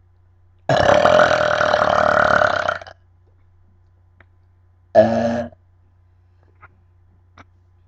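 Two loud human burps from a young woman: a long, drawn-out one lasting about two seconds, then a short one about five seconds in.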